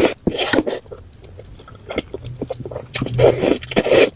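Close-miked mukbang eating: spicy noodles being slurped and chewed, with wet smacking and clicks in irregular bursts, easing off for a moment about a second in before picking up again.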